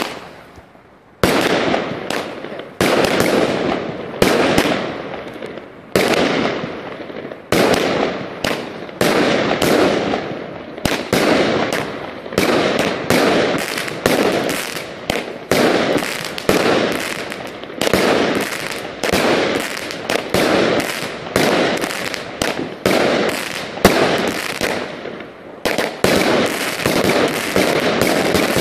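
Lambada 100-shot, 20 mm fireworks battery firing shot after shot. The first shot comes about a second in, then about one to two shots a second, each a sharp report that fades away. Near the end the shots come closer together and run into one another.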